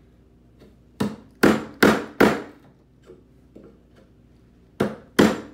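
Mallet striking a mortise chisel, chopping a mortise in wood: four sharp blows in quick succession about a second in, then two more near the end.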